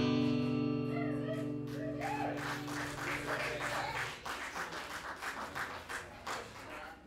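Acoustic guitar's final strummed chord ringing out and dying away over about four seconds, while an audience breaks into applause with a few shouts from about a second in.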